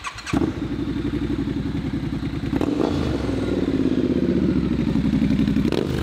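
Triumph Scrambler 1200 XC's parallel-twin engine running at idle, coming in suddenly just after the start, with the revs picking up briefly about two and a half seconds in.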